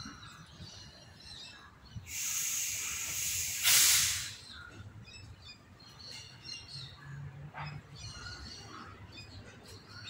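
Birds chirping faintly, broken by a loud hiss of about two seconds that grows louder just before it cuts off.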